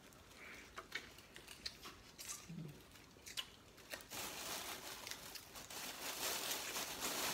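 Faint eating sounds, scattered mouth clicks and smacks of chewing seafood boil and corn on the cob. From about four seconds in comes a steady rustle of the plastic boil bags being handled.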